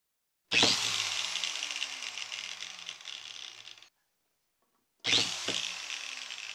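Electric power tool motor starting with a sudden loud burst, then running down with slowly falling pitch and fading level. It happens twice, about four and a half seconds apart, and the first run cuts off abruptly.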